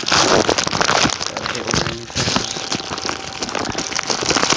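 A plastic bubble mailer crinkling and rustling loudly as hands open and handle it close to the microphone, a dense run of small crackles that eases briefly about two seconds in.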